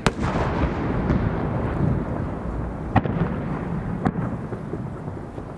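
A 10-inch (No. 10, 30 cm) aerial firework shell bursting with a sharp boom, followed by a long rolling rumble as the report echoes. Two more sharp bangs come about three and four seconds in.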